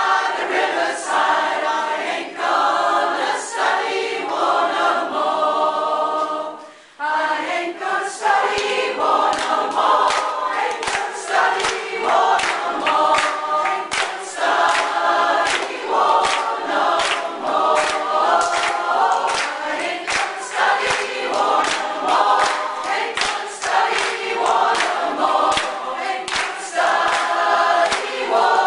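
A large group of singers, mostly women, singing a song together as a choir, with hands clapping along on a steady beat. The singing drops away briefly about seven seconds in, then carries on.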